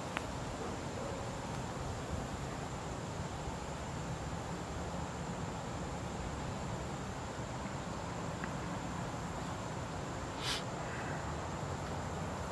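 Insects chirping in short, very high-pitched pulse trains over a steady rushing outdoor background, with one sharp click about ten and a half seconds in.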